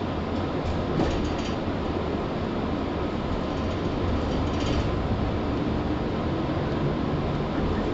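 JR 115 series electric train heard from inside motor car KuMoHa 115-1015, running with a steady low rumble. A few faint clicks come about a second in and again near five seconds.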